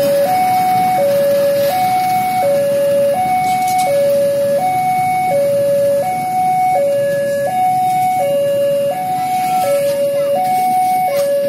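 Electronic level-crossing warning alarm sounding a steady two-tone signal, alternating between a lower and a higher tone each held under a second. Underneath it runs the rumble of passenger coaches rolling past.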